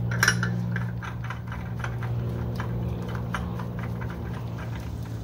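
Small irregular metallic clicks and ticks as the clutch bolt is fitted and threaded into the TAPP clutch by gloved hand. A steady low hum runs underneath.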